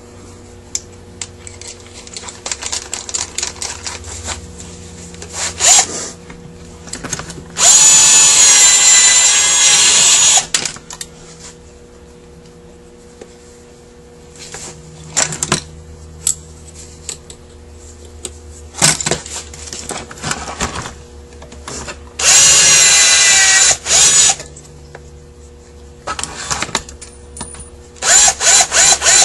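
Small electric drill-driver run in three bursts, the longest about three seconds, each rising in pitch as it spins up, while taking apart a Rochester Quadrajet carburetor. Light clicks and knocks of metal parts being handled come between the bursts.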